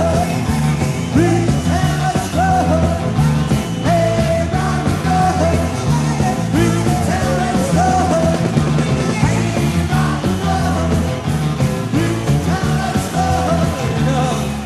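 Rock and roll band playing a song with a lead singer, over bass, guitar and drums, at a steady full level.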